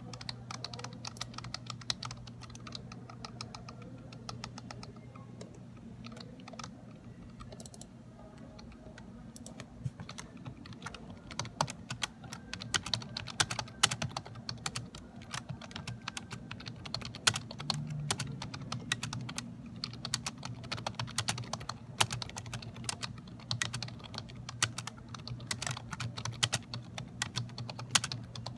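Typing on a Dell computer keyboard: a fast, irregular stream of key clicks, lighter at first and busier from about a third of the way in, over a low steady hum.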